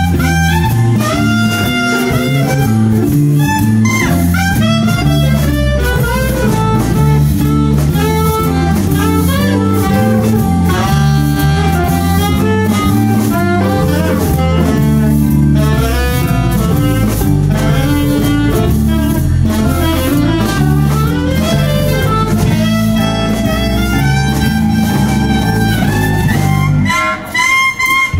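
Live blues band playing a slow blues number: saxophone and electric guitar over bass and drums, with a couple of brief stops near the end.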